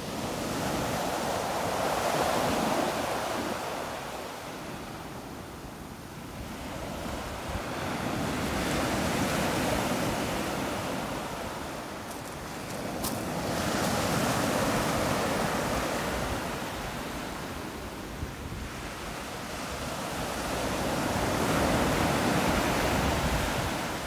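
Small sea waves breaking and washing up a pebble beach, the surf swelling and fading four times, about every six seconds.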